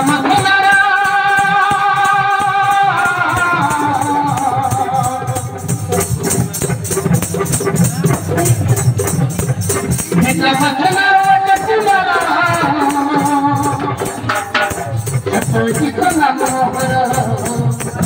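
Bastar folk nat music: a voice singing long held, wavering notes, twice, over a fast, steady shaken-rattle rhythm and low percussion.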